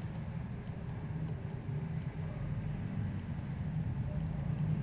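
Computer mouse button clicking irregularly, a few light clicks a second, as letters are drawn stroke by stroke in Paint, over a steady low hum.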